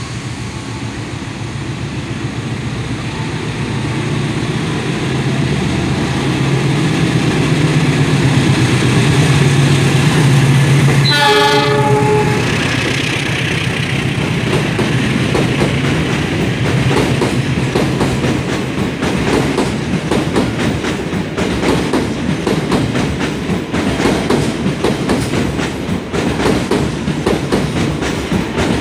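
A diesel locomotive hauling an Argo Parahyangan express passes close by, its engine hum growing louder as it nears. It gives one short horn blast about eleven seconds in. After that the passenger coaches roll past with a steady clickety-clack of wheels over the rail joints.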